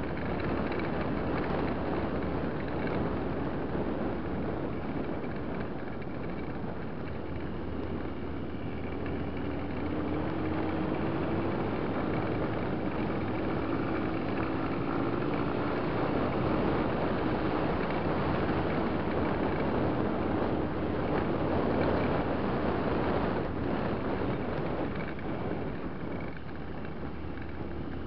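Enduro motorcycle riding a gravel dirt track, its engine running under a steady rush of wind and ride noise on the onboard microphone. A faint engine note climbs slowly about ten seconds in.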